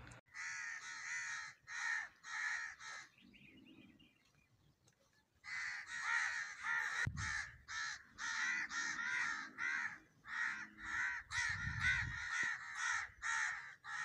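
Crows cawing: a quick run of harsh caws, a pause of about two seconds, then caws following one after another in a steady string.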